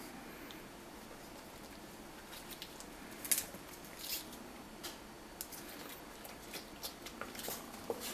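Handling noise of a black rubber gas mask turned over in gloved hands: scattered rustles and small clicks from the rubber face piece and head-harness straps, the loudest a little over three seconds in.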